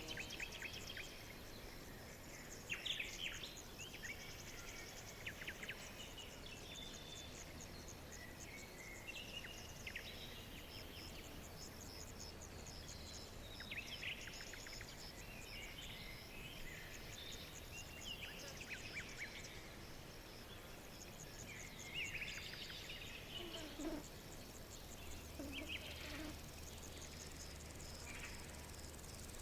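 Songbirds chirping and giving short, fast trills, some overlapping, over a steady, rapidly pulsing chirring of insects.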